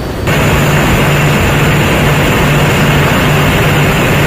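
Mark VI patrol boat running at speed: a steady low drone from its twin diesel engines under a loud rush of wake water and wind. The noise jumps louder just after the start and then holds level.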